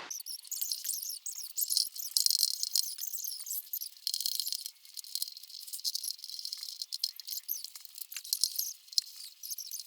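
Dense, high-pitched crackling and clicking of vinyl decal film and backing paper being handled and pressed on, thin and with no low end, as from sped-up footage.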